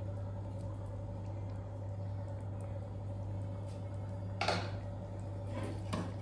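A steady low hum, with a utensil knocking against a cooking pot twice, about four and a half and six seconds in.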